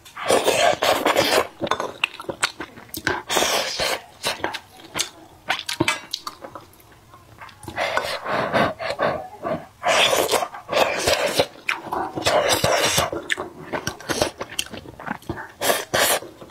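Close-miked eating sounds: chewing saucy stewed bullfrog and green beans, with wooden chopsticks clicking against the pot, a stretch of many short wet mouth noises and clicks that eases off briefly about halfway through.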